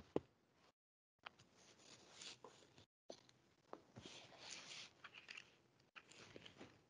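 Near silence: faint rustling and a few small clicks, dropping out completely for moments.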